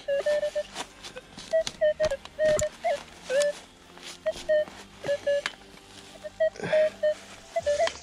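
Metal detector, a Minelab Equinox 800, giving many short mid-pitched beeps with some higher blips as it picks up targets, mixed with sharp knocks and scrapes of a shovel digging into leafy forest soil.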